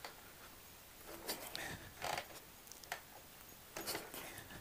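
Cold kick-start-only Harley-Davidson big-twin chopper being kicked over: several short, faint scrapes and clunks of the kick-start lever and the engine turning over without firing.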